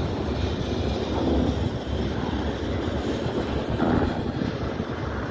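CSX freight train's black tank cars rolling steadily past on the rails: the continuous running noise of the wheels, with a few brief swells.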